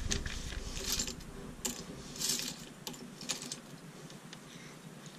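Plastic Lego pieces clicking and rattling as they are handled and pressed onto a small model. A handful of sharp clicks over the first three seconds or so, then it goes quiet.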